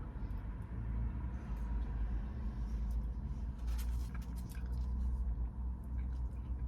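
Steady low hum inside a parked car, with scattered small clicks and mouth sounds of someone eating fries, most of them about four seconds in.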